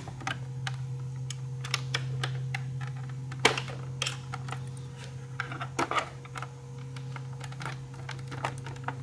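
Irregular small plastic clicks and taps as a pick pries at the plastic push fasteners on a motorcycle's tail bodywork, unsnapping them. The sharpest clicks come about three and a half seconds in and again near six seconds, over a steady low hum.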